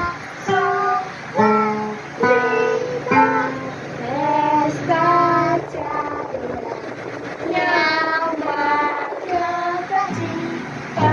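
A young girl singing a melody in held, stepping notes while an acoustic guitar is strummed along.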